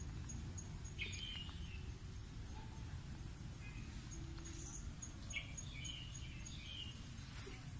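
Steady low background rumble with short, high chirps in two clusters, one about a second in and another from about five to six and a half seconds, over a faint, evenly repeating high ticking.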